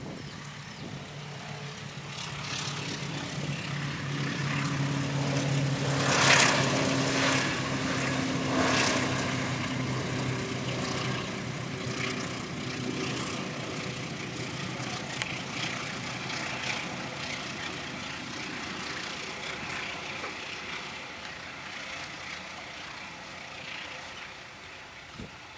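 A diesel locomotive-hauled train passing, with a steady low engine drone building up, wheels clacking over the rail joints as it goes by, then slowly fading away.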